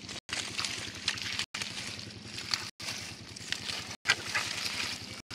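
Hands splashing and sloshing through shallow muddy water while pulling aside water hyacinth, in many short irregular splashes. A steady low hum runs underneath, and the sound cuts out briefly about every second and a quarter.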